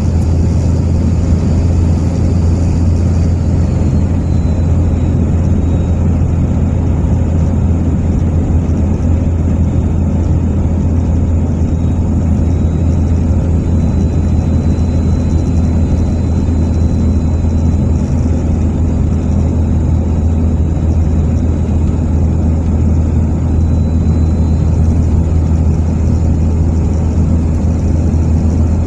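Steady low road and engine drone inside a car cruising at constant speed on a paved highway.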